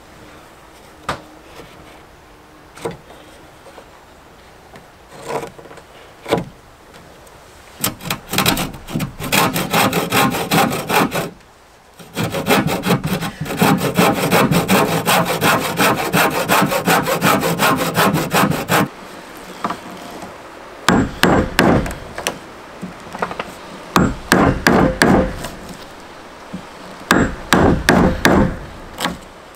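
A few scattered knocks of wood on wood. Then a handsaw cuts through a peeled log in rapid strokes for about ten seconds, with one short pause. After that, short bursts of hammer blows drive a chisel into a board.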